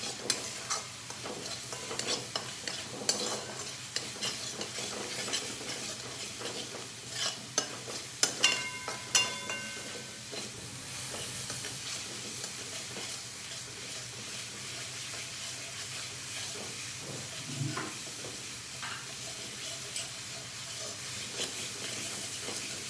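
Metal spatula stirring and scraping ground onion-tomato masala paste in a steel pan, the paste sizzling in oil over medium heat as it fries down toward the point where the oil starts to separate. Frequent scrapes and clinks, with a few ringing clinks, in the first half; a steadier sizzle with occasional scrapes after that.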